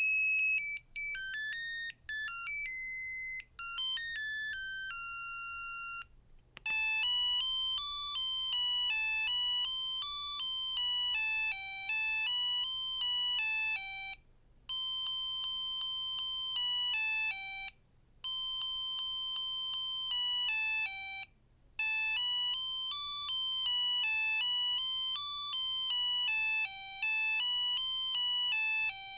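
Samsung SGH-R225 mobile phone playing its built-in ringtones through its small speaker, a melody of electronic tones one note at a time. A short tune ends about six seconds in, then another ringtone starts and repeats its phrase several times with brief pauses between repeats.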